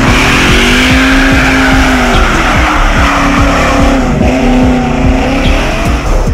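Sports car engine sound with tyre squeal, its note rising, holding and dipping twice, over regular short knocks about three a second.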